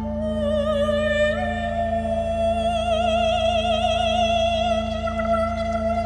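A man's wordless, theremin-like high singing: one long held tone that steps up in pitch about a second in, then wavers with a fast vibrato, over a steady low drone.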